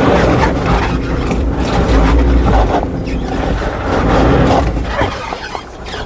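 Suzuki Jimny running off-road: a steady, loud low engine rumble with tyre and body noise and a few short knocks.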